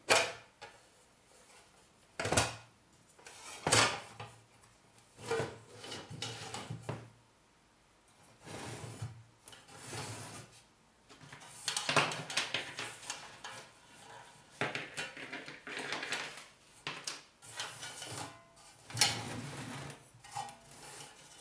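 Metal chassis of a vintage Heathkit IM-13 vacuum-tube voltmeter being slid out of its metal cabinet and handled: several sharp metal knocks in the first few seconds, then scraping and rattling of metal against metal.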